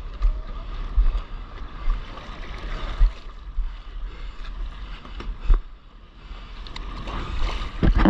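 Sea water sloshing and splashing against a paddleboard close to the microphone, with low dull thumps every second or so and louder splashing near the end.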